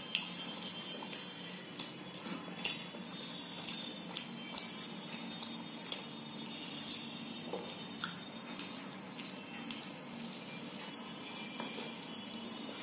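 Eating by hand from a steel plate: fingers mixing rice and dal with soft wet squishes and irregular small clicks against the metal.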